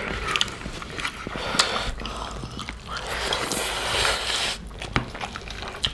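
Close-up eating sounds: chewing and lip-smacking on pig's feet curry, with wet clicks and squelches of curry-soaked rice kneaded by hand, and a longer noisy breath or slurp a few seconds in.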